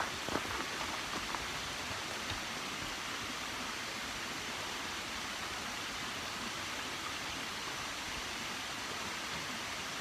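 Shallow forest stream rushing over low rock ledges, a steady even sound of running water.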